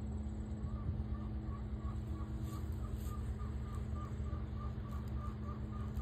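Outdoor ambience: a steady low rumble with a faint steady hum, and from about a second in a bird repeating a short call about three times a second.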